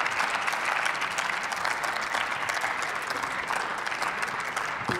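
Applause from members of parliament: many hands clapping at a steady, even level.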